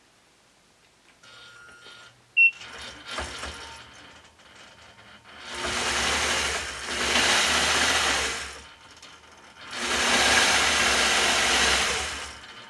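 Gammill longarm quilting machine: a short high beep about two and a half seconds in, then the machine stitching in two loud runs of about three seconds each, with a brief stop between, as the head is guided along a curved ruler.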